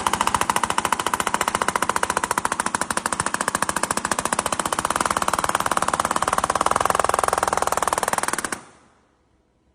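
AirDeft pneumatic dead blow palm hammer, rated at 1000 RPM, running and hammering in a rapid, even stream of blows, then stopping abruptly.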